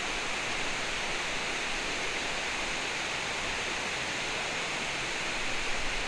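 Steady rush of flowing river water, an even hiss that does not change.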